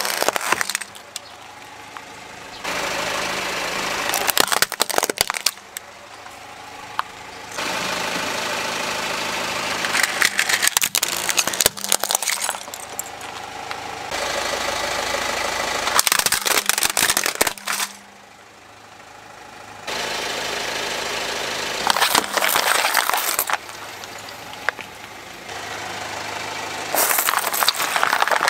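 A car tyre rolling slowly over plastic toys and plastic bottles packed with water beads, crushing them with repeated cracking and crunching, over the car's engine idling. The sound changes abruptly every few seconds.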